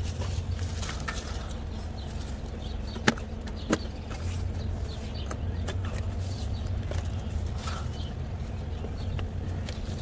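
Scattered light clicks and taps of hand work on a heat pump unit, with two sharper clicks about three and four seconds in, over a steady low hum.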